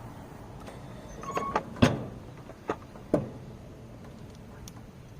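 A handful of short metallic clanks and knocks, the loudest about two seconds in: a wrench or socket being fitted to the bolts of a riding mower's belt guard and knocking against the metal.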